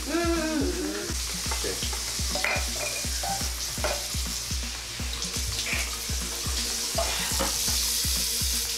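Toothbrush scrubbing teeth, a steady scratchy hiss, over background music with a regular low beat.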